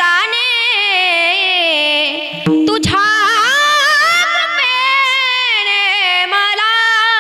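A woman singing a Varkari kirtan melody in long, gliding, held notes over a steady drone, with a low drum stroke about three seconds in.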